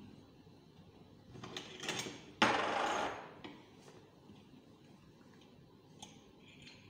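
Metal slotted weights clattering as they are handled. The loudest is a sudden clatter about two and a half seconds in that dies away within a second, and there are small clinks near the end as a weight is set on the hanger.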